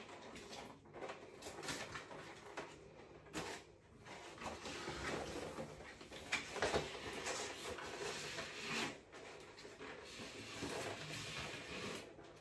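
Rustling and crinkling of large wall sticker sheets as their backing paper is peeled and handled and the stickers are pressed onto the wall, coming and going unevenly.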